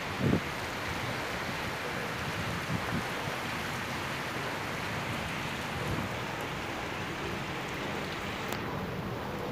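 Heavy monsoon downpour hissing steadily on a concrete rooftop, with a few short low rumbles of wind gusting on the microphone, the strongest just after the start.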